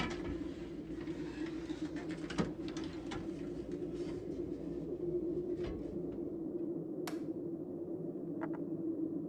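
Folding wooden attic ladder being pulled down and unfolded, rattling and clunking for the first few seconds, then single creaks and knocks as someone climbs its steps barefoot, under a steady low drone.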